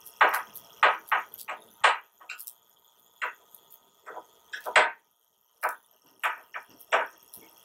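A screwdriver tightening Phillips-head bolts into the metal trolley frame: a string of irregular sharp metallic clicks and knocks.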